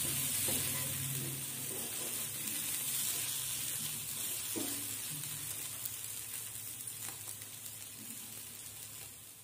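Prawn masala sizzling in a non-stick frying pan, with a few knocks and scrapes of a wooden spatula stirring it. The sizzle slowly fades toward the end.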